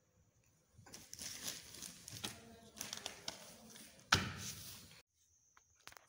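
Paper pages of an instruction manual being turned and handled, rustling, with a sharp knock about four seconds in; the sound cuts off suddenly about five seconds in.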